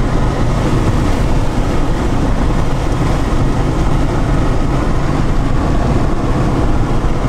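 Steady road and engine noise inside a moving vehicle's cabin, a constant low-heavy hum with no changes.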